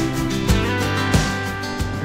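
Background music: a song with guitar and a steady beat, no singing in these bars.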